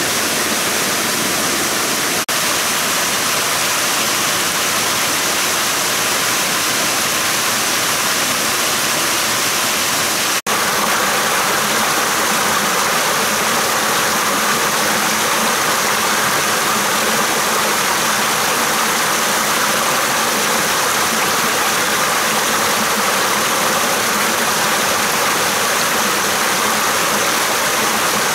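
Steady rush of a shallow forest stream running over rocks in small rapids. The sound breaks off for an instant twice, about two and ten seconds in, and after the second break the rushing comes back brighter.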